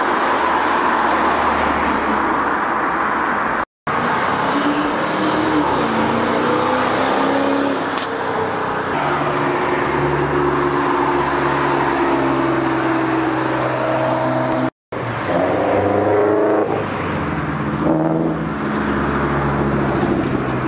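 Several performance cars driving past and pulling away one after another, engines revving with pitch rising and holding, in short clips joined by abrupt cuts.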